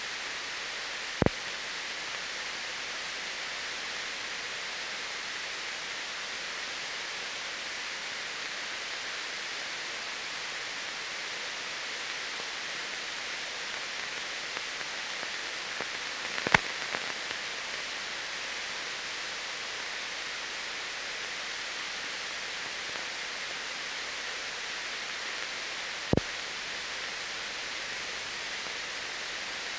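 Steady hiss, strongest in the upper range, with three sharp pops: about a second in, in the middle (the loudest), and near the end. It is the surface noise of an old silent film transfer, with no engine or machine sound in it.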